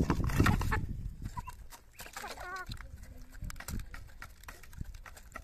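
Hens clucking as they peck feed from a plastic feeder dish, with a short wavering call from one hen about two seconds in and small pecking clicks throughout. A loud rustling noise fills the first second.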